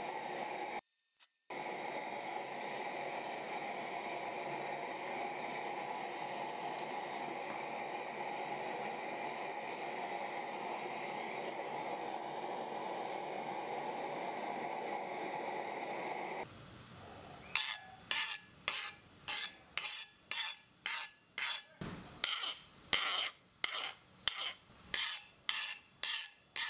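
MAPP gas torch burning in a paint-can forge, a steady hiss with a brief dropout about a second in. It stops after about sixteen seconds, and soon after a file is drawn across the quenched 1075 high-carbon steel blade in regular rasping strokes, about one and a half a second: the file skating over the steel, the test that shows the blade has hardened.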